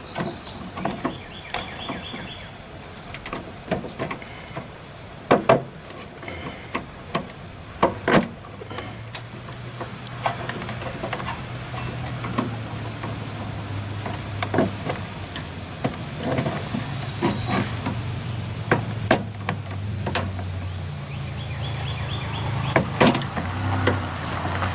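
Scattered clicks and knocks of plastic and metal parts being worked loose inside a microwave oven while its locked micro switches are unplugged. A low steady hum comes in about nine seconds in.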